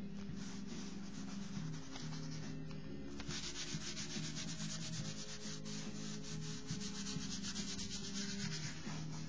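Crumpled tissue rubbed and scrubbed quickly back and forth over a paper sketchbook page wet with acrylic ink, a fast scratchy rhythm that gets busier about three seconds in. Soft background music runs underneath.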